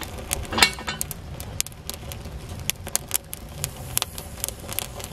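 Wood fire crackling inside a clay tatakua oven, kindling and dry leaves burning under stacked logs: irregular sharp pops and snaps over a low steady rumble.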